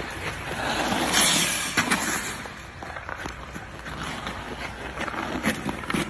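Ice hockey play at rink level: a steady scraping hiss of skates on the ice, with a louder rush of ice spray about a second in and several sharp knocks of sticks and puck.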